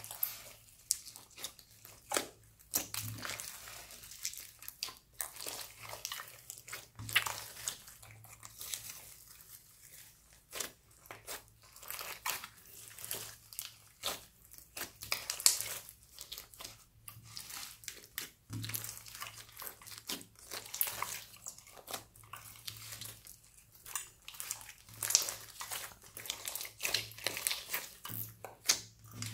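Hands squeezing, kneading and stretching a large mass of mixed slime studded with foam beads, giving a continuous stream of irregular wet pops, clicks and crackles.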